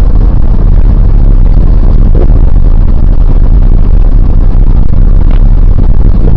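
A car being driven, its engine and road noise heard from inside the cabin, loud and steady and distorted by an overloaded microphone.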